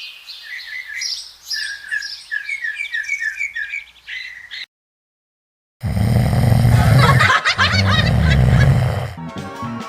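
A bird's calls: a quick string of short, repeated high chirps and squawks lasting about four and a half seconds, then a second of complete silence at a cut. After that comes about three seconds of a loud, noisy sound, and music comes in near the end.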